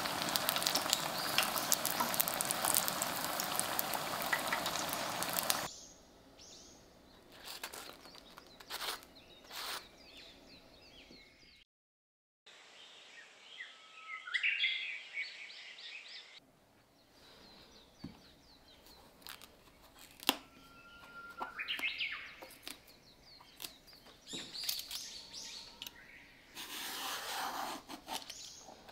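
Oil sizzling loudly as battered eggplant fritters deep-fry, cut off sharply after about six seconds. Then quieter kitchen sounds with scattered light clicks and bird chirping in the background. Near the end comes the scrape of a vegetable peeler stripping eggplant skin.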